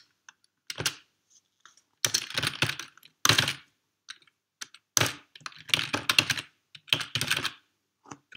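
Typing on a computer keyboard: quick runs of keystrokes in several bursts, with short pauses between them.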